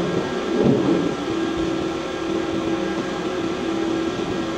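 Steady industrial machinery hum: a wash of mechanical noise with one constant mid-pitched tone that settles in about a second in.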